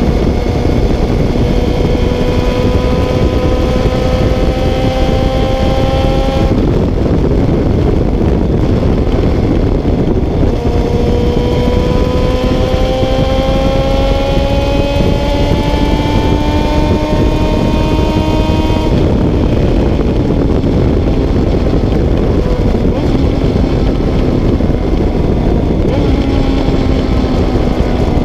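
Honda CBR 600 F3's inline-four engine pulling at road speed under heavy wind rush, its note climbing slowly in pitch. The engine note drops away about six seconds in and comes back about four seconds later to climb again. It drops away again a little after halfway and returns faintly near the end.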